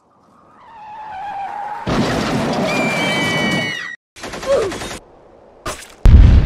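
Cartoon sound effects: a sound that swells up, then about two seconds of dense gunfire, and a loud, low boom near the end.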